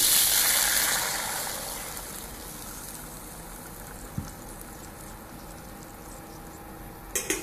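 Water poured from a steel bowl into a hot kadai, hissing and splashing loudly at first, then fading over a couple of seconds to a quieter steady hiss as it heats in the pan. A short clatter near the end.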